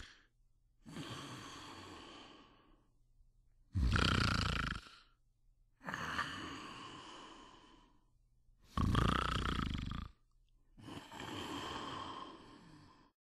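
A person snoring in a slow, even cycle. A short, loud snore on each breath in, about five seconds apart, is followed by a long, quieter breath out that fades away.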